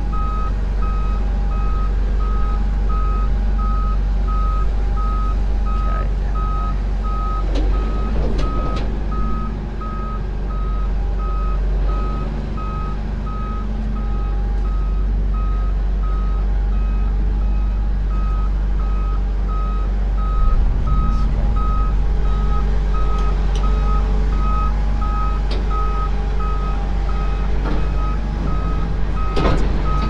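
Reversing alarm beeping in a steady run of evenly spaced beeps, over the low, steady running of the engine of the heavy vehicle backing a large grain mother bin trailer.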